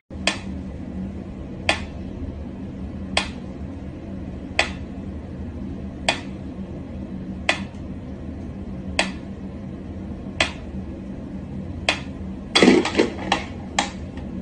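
Mechanical pyramid metronome ticking slowly and evenly, about one tick every second and a half. Near the end the even ticking gives way to a brief clatter of several louder knocks.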